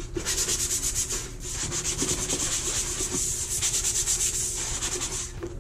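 Hand sanding a flat wooden panel with a sanding block: quick, even back-and-forth scratching strokes that stop shortly before the end.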